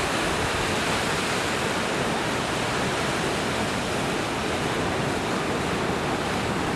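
Steady rushing noise of surf breaking and washing toward the shore.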